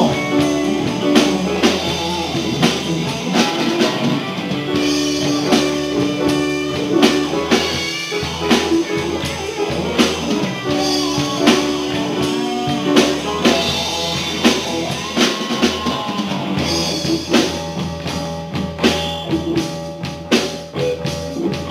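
Live rock band playing a song, with electric guitar, bass and a drum kit keeping a steady beat.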